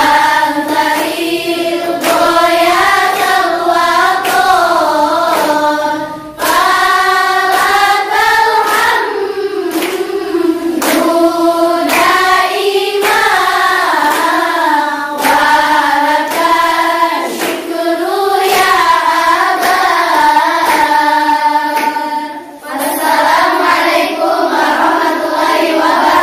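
A choir of girls sings an Arabic sholawat in unison with no instruments, the melody rising and falling in long phrases with two brief breath pauses. Sharp claps sound now and then.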